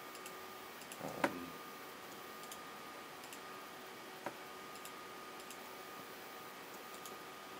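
Sparse clicks of a computer mouse and keyboard being worked, a louder one about a second in, over a faint steady hum.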